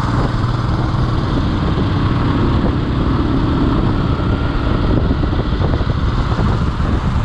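Motorcycle engine running steadily while being ridden in traffic, heard from the rider's seat.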